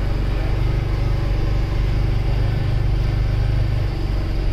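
Engine of a cabbed side-by-side utility vehicle running steadily while driving, heard from inside the cab as a constant low drone.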